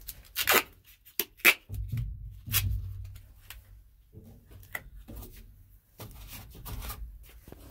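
Hands pressing paper and tape onto a metal truck dashboard: rustling and crinkling with a few sharp clicks and knocks, and low rumbling handling noise in between.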